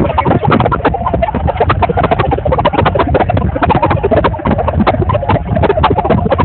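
Large audience applauding, a dense patter of clapping with crowd noise beneath.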